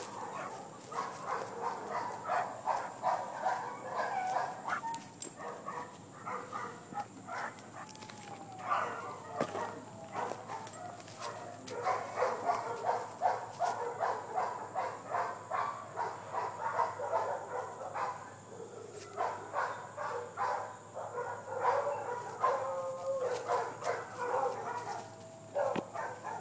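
Black Labrador retriever breathing hard in quick, rhythmic breaths, about three to four a second, in runs that pause and resume.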